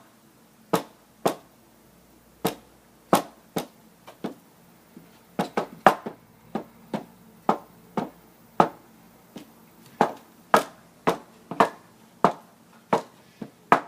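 Hammer striking nails into a wooden birdhouse: about twenty sharp knocks at an uneven pace, roughly one or two a second, each with a short ring.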